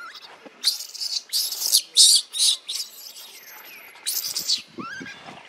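Baby macaque screaming in a string of short, high-pitched noisy bursts, about five in quick succession and another a couple of seconds later, followed by a few short rising squeaks near the end.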